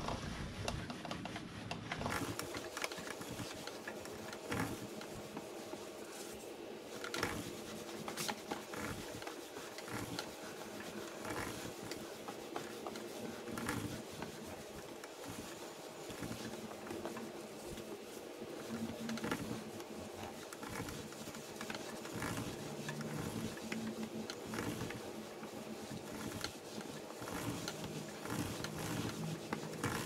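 Harley-Davidson Pan America's roller drive chain clicking and rattling steadily over the sprockets as the rear wheel turns, with a terry cloth towel rubbing along the links to wipe off kerosene and dirt.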